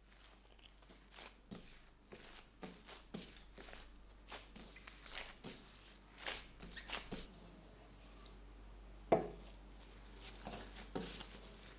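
Gloved hands folding and pressing bread dough on a floured wooden board: irregular soft squishes, slaps and glove rustles, with one sharper knock about nine seconds in.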